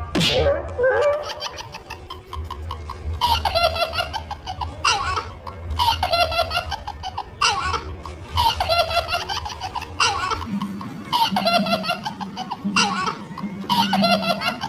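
A high-pitched laugh repeated in short, near-identical bursts, about one every second and a half, over a low steady hum.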